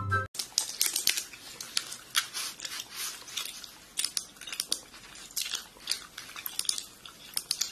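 Faint, irregular small clicks and crackles against quiet room tone.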